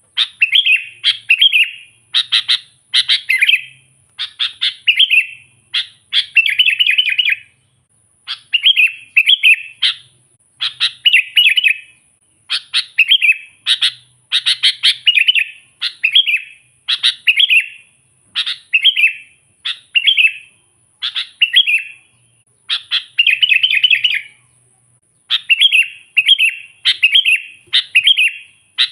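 Sooty-headed bulbul (kutilang) in full song: short chirping phrases repeated about once a second, with a few brief pauses.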